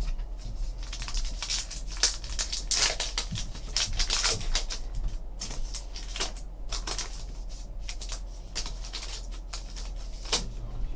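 A trading-card pack's wrapper being torn open and crinkled by hand, then the cards inside slid apart and handled: an uneven run of crackles, rustles and small clicks.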